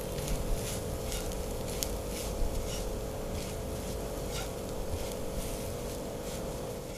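Spatula scraping and stirring mashed potato stuffing in a non-stick frying pan, irregular soft scrapes over a steady low hum.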